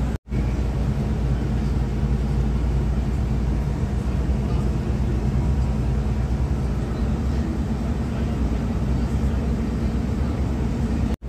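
Steady engine drone and road noise inside a moving vehicle. The sound cuts out completely for a moment just after the start and again near the end.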